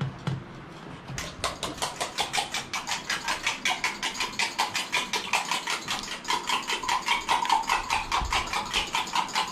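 Rapid, even tapping at about six strokes a second, starting about a second in, with a ringing tone under it.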